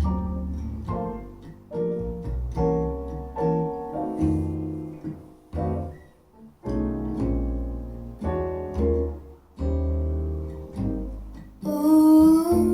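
Instrumental intro of a jazz ballad, with piano, guitar and double bass, played back through Kef LS50 bookshelf speakers. A voice comes in near the end.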